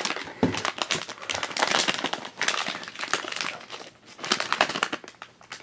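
Foil blind-box pouch crinkling and crackling as hands handle it and work it open, with a brief lull about four seconds in.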